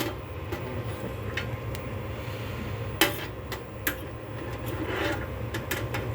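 Scattered sharp clicks and light knocks of a console cable and its plug ends being handled and fitted, the loudest about three seconds in, over a steady low hum.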